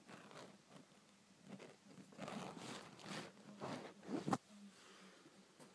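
Irregular rustling and scuffing, typical of a phone being handled against curtain fabric, with a sharp knock a little after four seconds in.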